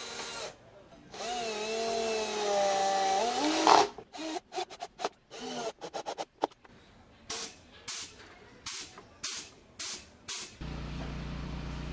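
Cordless drill-driver screwing caster-wheel mounting plates into a wooden board: the motor runs steadily for about three seconds, rising in pitch as it stops, then comes a string of short trigger bursts. Near the end a steady low hum takes over.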